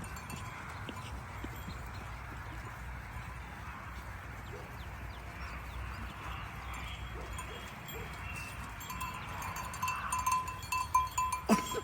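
Farm livestock ambience. From about nine seconds in, a bell clinks in quick repeats, and two short knocks come near the end.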